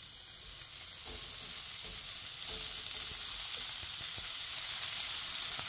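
Raw cubes of beef chuck roast sizzling in hot oil as they are laid piece by piece into a hot stainless steel skillet to brown. The sizzle grows gradually louder as more pieces go in.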